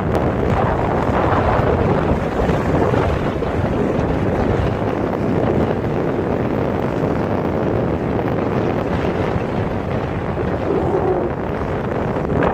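Wind rushing steadily over the microphone aboard a sailboat out on the water, with waves washing past.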